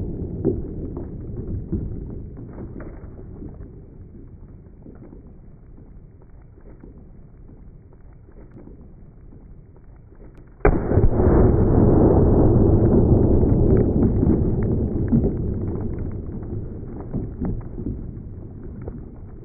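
Slowed-down 5.56 rifle shots hitting a ballistic dummy head, heard as deep, drawn-out booms: one dying away at the start, then a sudden boom about ten and a half seconds in that fades slowly over several seconds.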